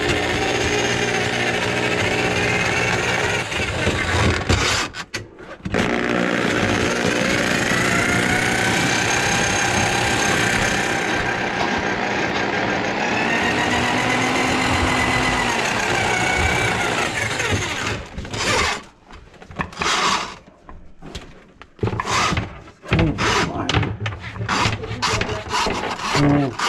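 Electric drum drain auger running, its cable spinning in a kitchen sink drain line plugged with grease. The motor hum carries a whine that rises and falls, with a short break about five seconds in; from about two-thirds of the way through it is run in short on-off bursts.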